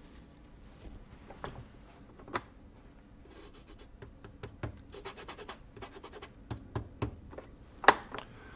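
Fingertips rubbing and scratching across the front of a small loudspeaker and tapping on it, a handful of sharp taps among the scratching, the loudest near the end. The speaker is wired up as a microphone and is being tapped to test the circuit.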